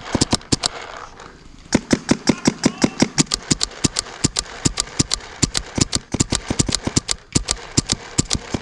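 Paintball markers firing rapid strings of shots, about eight to ten pops a second, with a short lull a little over a second in.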